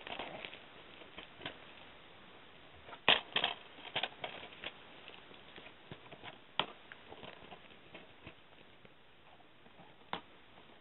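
Plastic DVD cases being handled and shuffled in the hand: scattered clicks and knocks, the loudest cluster about three to four seconds in and one more sharp knock near the end.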